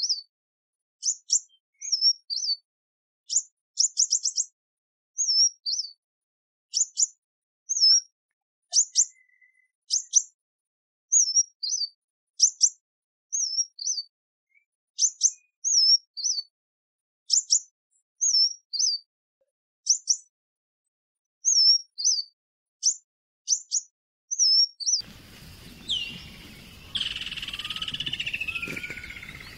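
Kingfisher calls: short, sharp, high chirps, one or two every second or so, with a quick run of notes about four seconds in. Near the end the chirps stop, giving way to outdoor background noise and a drawn-out falling squeal.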